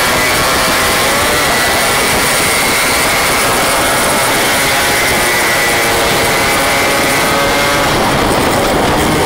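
Yamaha RX King 135cc two-stroke motorcycles riding in a group, the single-cylinder engines buzzing steadily at cruising speed with small shifts in pitch.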